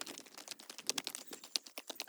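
Rapid, irregular clicking and crackling, many sharp ticks a second.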